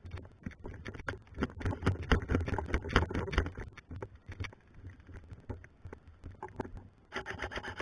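A run of irregular knocks and rustling with a low rumble, densest and loudest from about one and a half to three and a half seconds in, then sparser.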